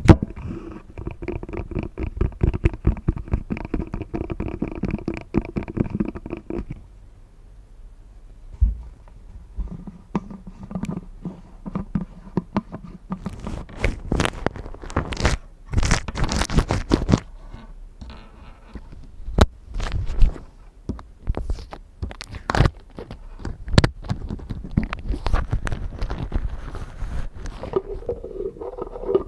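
Glass coffee cup being tapped rapidly for about the first seven seconds, the glass ringing with a steady tone under the taps. Then slower scratching and scattered sharp taps on the glass, with the ringing coming back near the end.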